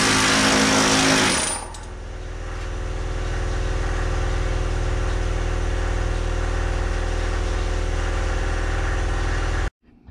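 Pneumatic planishing hammer rapidly hammering a steel dash panel to put its crown back, loud for about the first second and a half. It then gives way to a steadier mechanical running sound with a low drone, which cuts off suddenly near the end.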